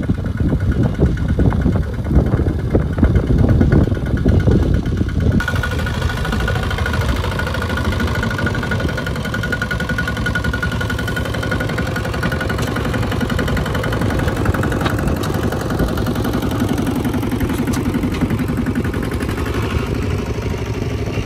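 Single-cylinder diesel engine of a two-wheel walking tractor running under heavy load as it drags a loaded trailer through deep mud. About five seconds in the sound changes abruptly to a steadier run with a steady high tone over it.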